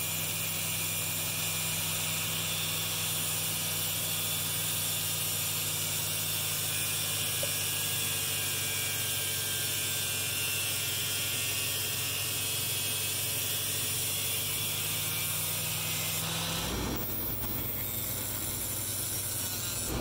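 Angle grinder with a thin cutoff wheel running steadily while cutting through a plastic wall switch plate. Near the end the steady tone stops and a rougher noise takes over.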